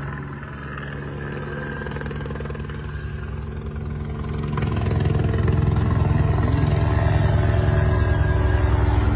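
Police helicopter's rotor chopping with a rapid, regular beat over its turbine, growing louder about halfway through as it comes in low overhead.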